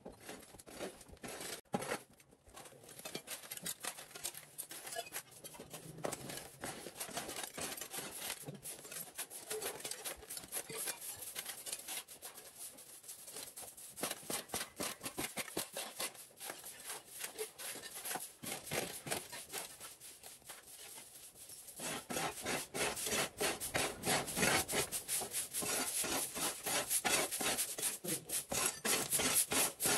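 Rapid, repeated scraping strokes of a hand tool or brush working a rough surface, growing louder about two-thirds of the way through.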